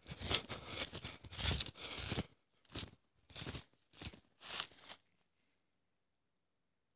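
Footsteps crunching through dry fallen leaves: a quick run of steps, then four or five single, slower steps, stopping about five seconds in.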